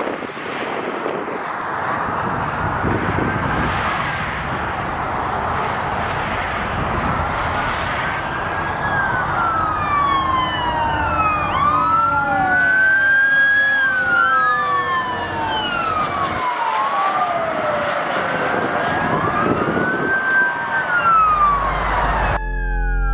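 Emergency sirens of a fire department aerial ladder truck and a police SUV, wailing up and down out of step with each other and growing louder as they approach, over steady highway traffic noise and wind. Near the end the sound changes abruptly and a steady low hum comes in under the siren.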